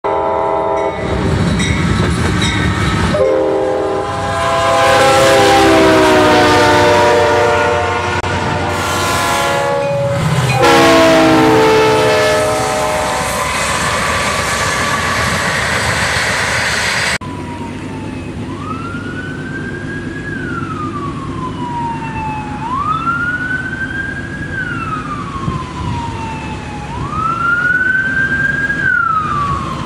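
Several locomotive air horns sound in turn over the rumble of passing trains, some sliding down in pitch as the train goes by. After an abrupt cut about halfway through, a siren wails, rising and falling about every four seconds, over a low engine rumble.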